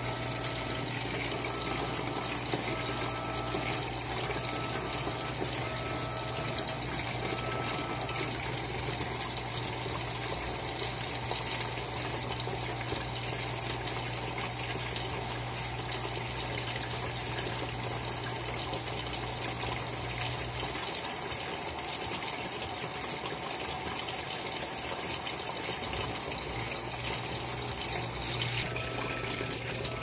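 Electrolux LAI17 top-load washing machine taking in water at the high level while agitating the load: a steady rush of inlet water with churning in the drum. A low hum stops about two-thirds of the way through.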